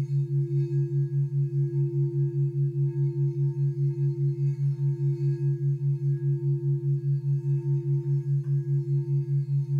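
Crystal singing bowl being rimmed with a mallet, holding one steady ringing tone, over a low electronic brain-entrainment tone that pulses about four times a second.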